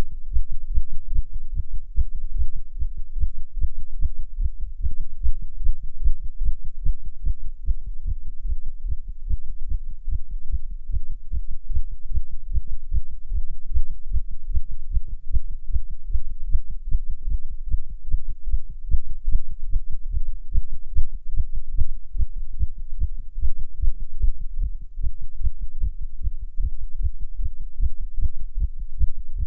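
Human heartbeat beating fast in an even, rapid run of low beats, the rate raised by nicotine from smoking a cigarette.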